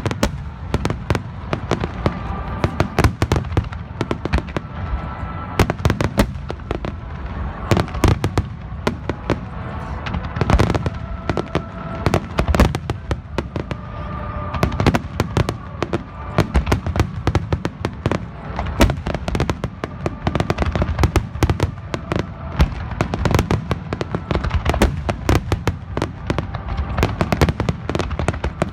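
Fireworks display in a dense barrage: sharp bangs and crackling bursts, many a second, going on without a pause.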